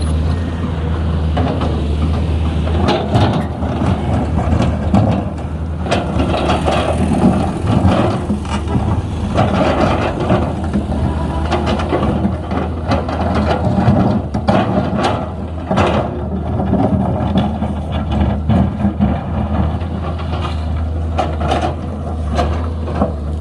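Komatsu PC210LC hydraulic excavator running with a steady low diesel drone, with irregular knocks and clatter throughout as it works.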